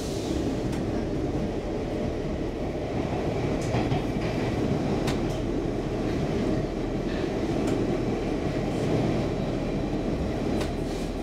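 Stockholm Metro C14 train running at speed, heard from inside the carriage: a steady low rumble of wheels on rails, with a few sharp clicks scattered through it.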